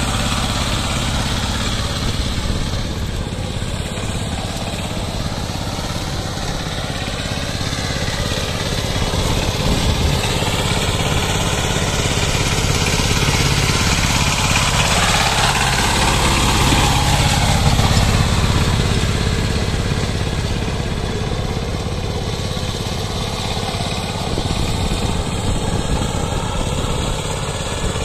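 Power tiller's single-cylinder diesel engine chugging steadily under load as its rotavator churns through wet paddy mud. It grows louder in the middle as the tiller passes close by, then fades a little as it moves away.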